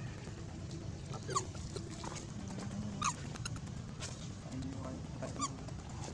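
Long-tailed macaques giving short, sharp squeaks, three of them about two seconds apart, over steady low background noise.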